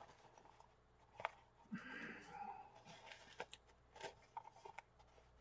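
Faint handling sounds of a nylon stove pouch: soft rustling with a few light clicks and taps, and a short soft hiss about two seconds in.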